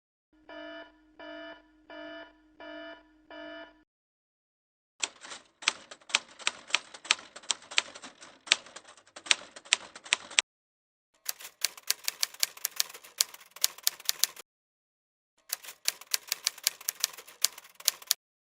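Edited-in sound effects: an electronic alarm-style beep sounds five times in quick succession. Then come three runs of rapid typewriter key clicks, with dead silence between the runs.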